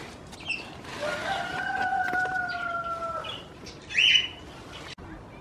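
Goat kid bleating in one long, steady call lasting about two seconds, with short high bird-like chirps around it and a loud brief chirp near the end.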